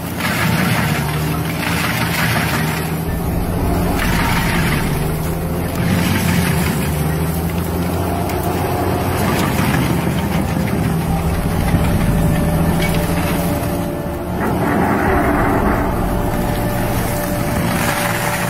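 Heavy stump grinder running under load, its engine humming steadily while the spinning toothed disc chews into a tree stump. The grinding and chip-spray noise surges and fades every second or two as the disc bites in.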